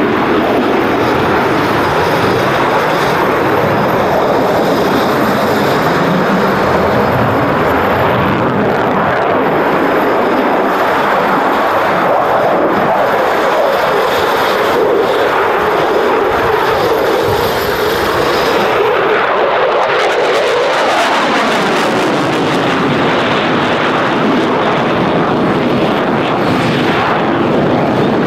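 Eurofighter Typhoon jet fighter's twin jet engines in afterburner, a loud, steady noise as it flies its display. The deepest part of the sound drops away about twenty seconds in.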